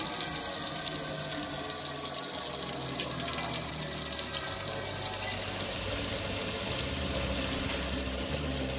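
A stream of tap water pours steadily into a large, empty metal cooking pot, splashing on the bottom as it begins to fill.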